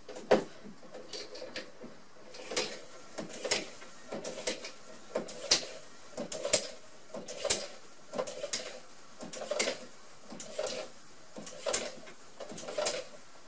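Hand air pump being worked into a plastic bottle through a tube, pressurising it: a sharp click at the start, then about one stroke a second, each with a click and a short rush of air.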